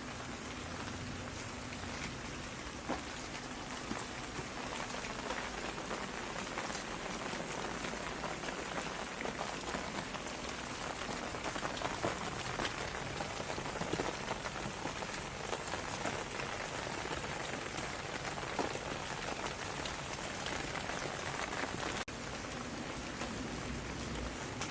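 Steady rain falling on a surface, a dense patter of individual drops over an even hiss. Near the end it cuts out for an instant and goes on with a slightly different texture.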